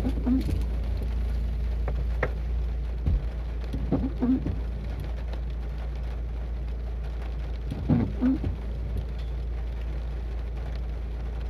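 Car engine idling in the rain, with rain on the body and windshield, and a short low sound of one or two notes repeating about every four seconds.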